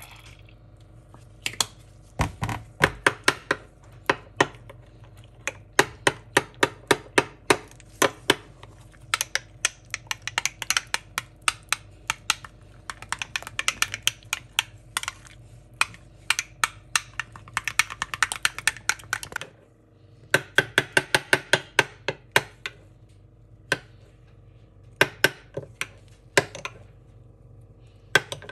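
A metal spoon stirring a thick mayonnaise-and-ketchup sauce in a glass bowl, clinking against the glass in rapid runs of taps with a few short pauses, over a faint steady hum.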